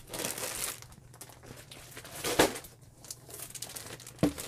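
Plastic packaging of a cross-stitch kit crinkling as it is handled and moved, with a louder crackle about two and a half seconds in and sharp rustles near the end.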